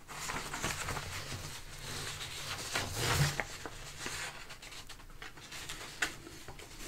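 Loose sheets of paper rustling as they are handled and turned over, with a few small taps, one sharper near the end.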